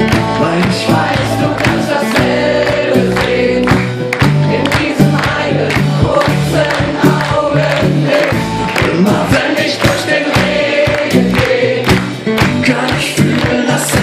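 Live acoustic pop-rock band playing, with acoustic guitars, keyboard and drums, while many voices sing the melody together, the crowd joining in with the singer.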